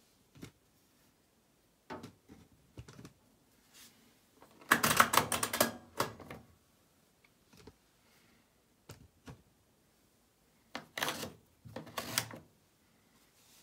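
Clicks and knocks from an AEG Lavamat 1400 front-loading washing machine being handled: scattered single clicks, a dense run of rapid clicks about five seconds in, and two shorter clusters near the end.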